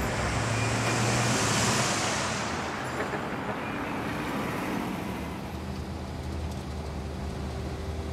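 Road traffic noise: a steady rumble, with a louder hiss that swells and fades over the first couple of seconds.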